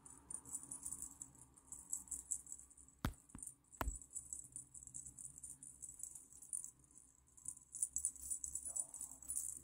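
Cat toy jingling in quick, irregular shakes as it is waved for a kitten to play with, with two sharp knocks a little after three seconds in.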